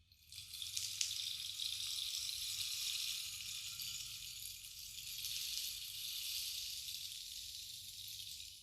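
Bamboo rainstick tipped over, its fill trickling down inside the tube in one long, even rain-like hiss. It starts just after the beginning, eases a little later on, and cuts off at the end.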